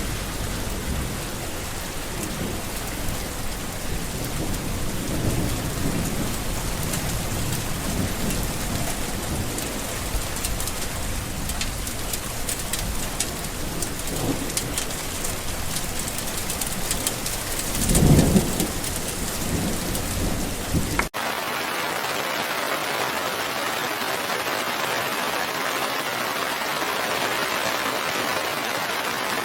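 Steady heavy rain with low rumbling swells underneath, the loudest about two-thirds of the way in. About 21 seconds in the sound cuts abruptly to a steadier, brighter rain hiss without the low rumble.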